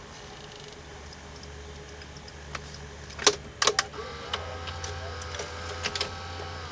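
Sharp VC381 VHS recorder's tape mechanism running with a low hum and giving two sharp clicks about three seconds in, as playback comes up on screen. After that, several steady tones from the tape's soundtrack join it, with a few lighter clicks.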